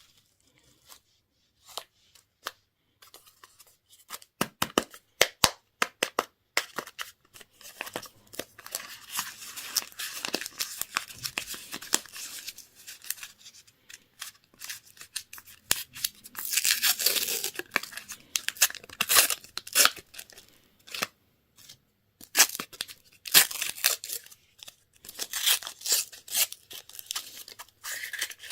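Candy wrappers being torn open and crinkled: a few sharp crackles at first, then dense stretches of tearing and rustling.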